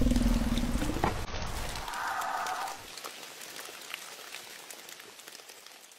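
Crackling, hissing noise full of small clicks, fading steadily to near silence, with a short falling tone in the first second and a brief held tone about two seconds in.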